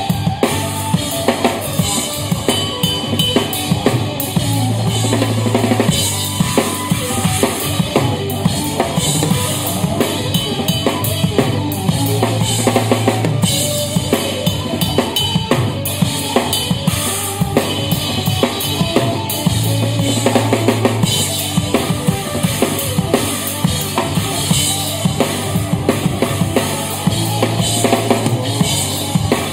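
A live instrumental jazz-rock fusion band, led by a drum kit played hard and fast: dense kick, snare and cymbal strokes. Held low bass notes come and go beneath.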